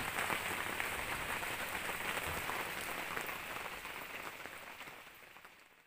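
Steady rain, a dense patter of small drops, fading out over the last couple of seconds.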